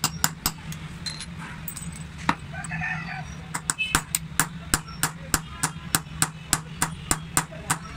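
Small hammer tapping a steel chasing punch into a copper tray while hand-engraving its pattern: sharp metallic taps about three a second, pausing for about two seconds after the first second, then resuming steadily.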